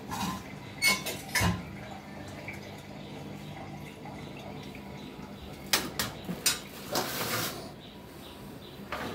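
Steel plate and metal kitchen utensils clattering as they are handled and set down: a couple of sharp clanks about a second in, then a cluster of clanks and rattles around six to seven and a half seconds in.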